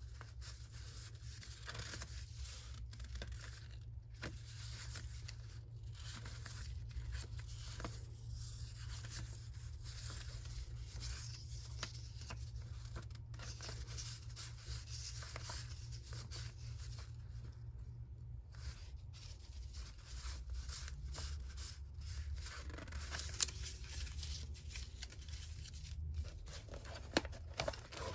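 Paper being torn and handled, a continuous close rustling and ripping, with a few sharp taps near the end.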